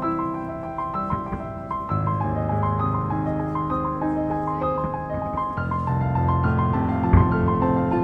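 Piano music: quick high notes over changing bass chords, with a single low thump about seven seconds in.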